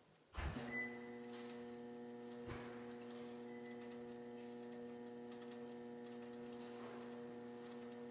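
Steady electrical hum made of several even tones, with a low thump about half a second in and a softer one about two and a half seconds in.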